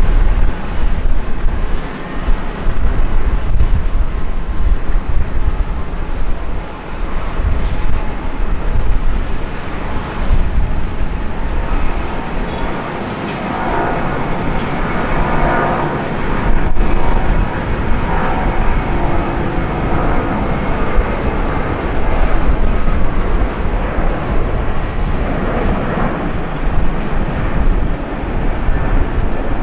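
Boeing 767-300ER's twin turbofan jet engines at takeoff thrust through the takeoff roll and lift-off: a loud, steady jet roar that is strongest about halfway through, with a whine in it, as the airliner passes closest.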